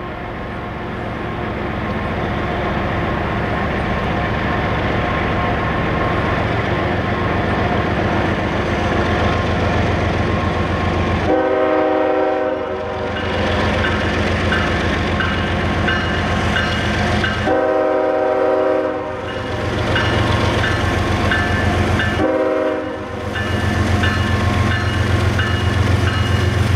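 Freight train's diesel locomotives approaching with a low engine rumble that grows louder, sounding the air horn: a long blast about 11 seconds in, another long one about 17 seconds in, and a short one about 22 seconds in, the pattern of a grade-crossing signal. Evenly spaced high dings of a bell, about two a second, start near the first horn blast.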